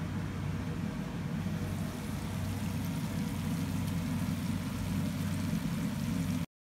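Steady low rumbling hum of kitchen background noise beside a pot on a gas stove, even throughout, cutting off suddenly about six and a half seconds in.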